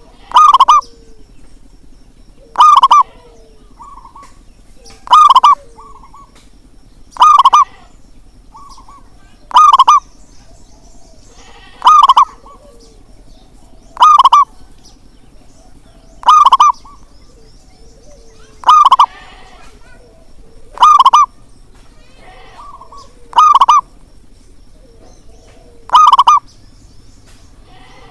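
Zebra dove (perkutut) cooing: a loud, short call repeated evenly about every two and a half seconds, with fainter cooing notes between the calls.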